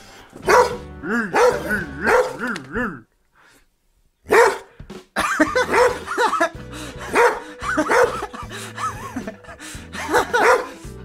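A shaggy-coated pet dog barking repeatedly, about one bark a second, with a short break a third of the way through.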